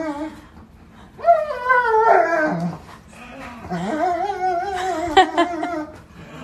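Large black dog whining and howling in long calls whose pitch wavers: one starting about a second in, and a longer one from just under four seconds, with a few sharp clicks around five seconds in. The calls are an excited greeting as a person comes in through the door.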